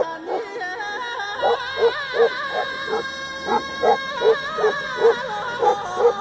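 Tibetan mastiff barking repeatedly in deep, steady barks, about two to three a second, over background music.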